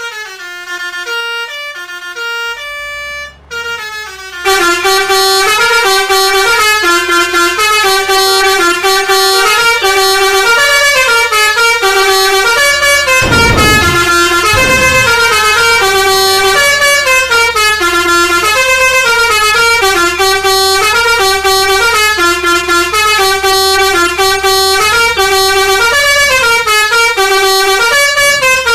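Basuri 'telolet' multi-tone bus horn playing a repeating melody of stepped notes. It starts thinner, then becomes much louder and fuller about four seconds in, over a low steady engine hum.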